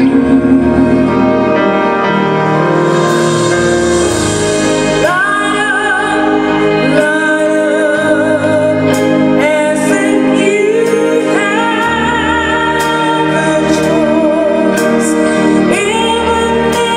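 Live band music with a female vocalist. After a few seconds of instrumental playing, she sings long held notes with wide vibrato, sliding up into each new phrase.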